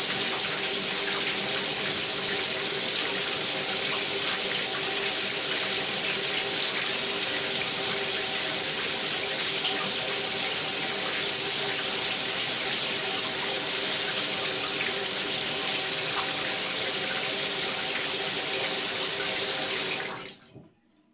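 Shower running in a steady spray, shut off about twenty seconds in so that the water noise cuts away quickly.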